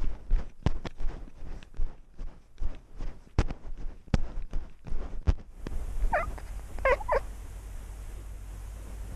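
A cat bounding over dry forest leaf litter with a GoPro on its back: a quick, uneven run of knocks and rustles from its strides for about five seconds. It then stops and gives three short meows about a second apart.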